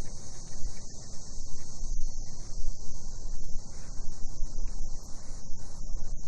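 Cicadas droning in a steady, high, continuous chorus, over a fluctuating low rumble of background noise.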